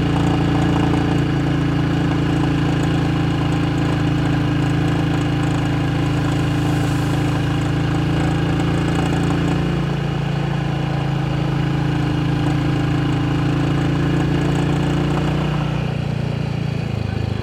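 Motorcycle engine chugging steadily in second gear under load up a steep climb, easing off near the end.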